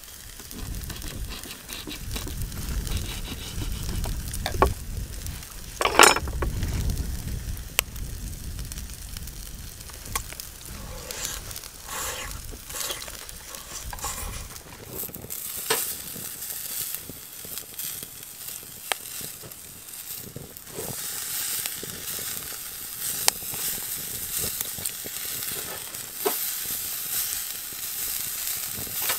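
Meat sizzling on a grill over charcoal, a steady hiss with small crackles that grows louder and brighter about halfway through. A low rumble runs under the first half, with a sharp knock about six seconds in.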